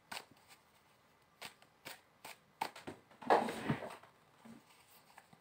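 A deck of Osho Zen Tarot cards shuffled by hand: a few soft clicks as cards slap together, then a louder rustle of the cards a little past the middle.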